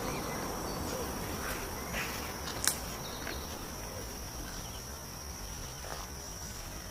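Insects trilling steadily on one high pitch over a low background rumble, with a single sharp click about two and a half seconds in.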